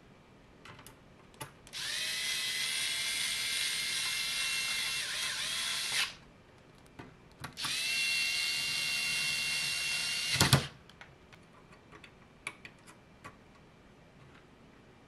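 Cordless electric screwdriver driving screws into a switch's circuit board mountings: two runs of motor whine, about four and three seconds long, the second ending in a clack. Small clicks and taps between and after.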